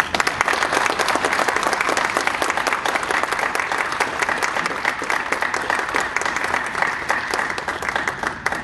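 Audience applauding: many people clapping at once, starting suddenly and thinning to a few scattered claps near the end.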